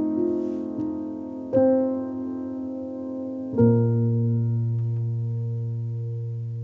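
Background piano music: slow, soft chords, a new one struck about one and a half seconds in and another about three and a half seconds in, which is left to ring and slowly fade.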